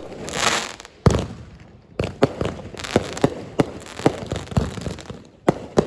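Fireworks going off: a short hiss, a loud bang about a second in, then a run of irregular sharp pops and crackles.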